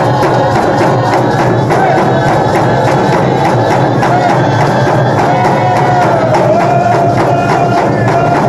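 Lahal (stick game) song: a group of voices singing together over frame hand drums beaten in a steady, even rhythm.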